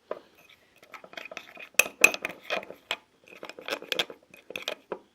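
A spoon scraping and clinking against a plate in quick, irregular strokes, stirring a thickening toothpaste-and-salt slime mixture, with brief pauses between runs of strokes.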